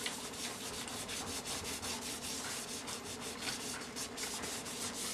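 Gloved hand rubbing mink oil into a smooth leather loafer: quick, continuous back-and-forth strokes of glove over leather, several swishes a second, while conditioning the shoe.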